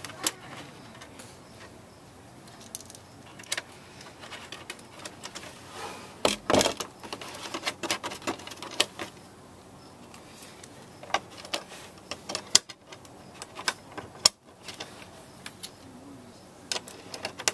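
Small metal bolts and washers clicking and clinking against a hard plastic panel as they are fitted by hand, with scattered taps and a louder clatter about six seconds in.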